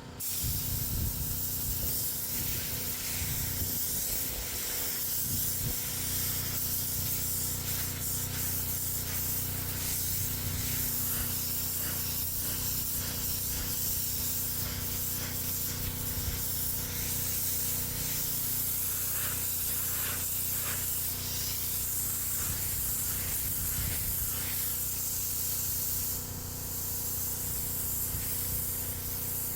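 Spray gun hissing steadily as it sprays clear coat onto a repaired bumper. The spray starts abruptly and eases briefly near the end.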